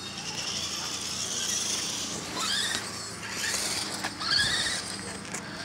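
Radio-controlled rock crawler's small electric motor and geartrain whining as it crawls over rocks. The pitch climbs in two short run-ups, about two and a half and four seconds in, as the throttle is pushed.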